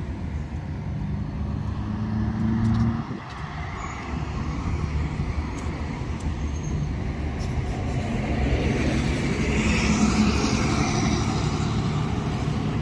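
Road traffic going by: engine hum from a passing vehicle for the first three seconds, then a steady rush of engines and tyres that swells as another vehicle passes about ten seconds in.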